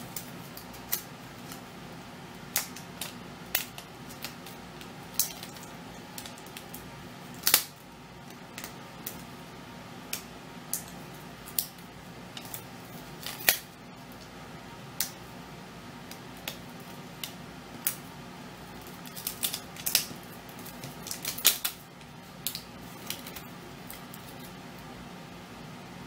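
Irregular small clicks and taps of hands handling a laptop's replacement screen panel while seating its ribbon cable under the tape, with a few sharper knocks, over a faint steady hum.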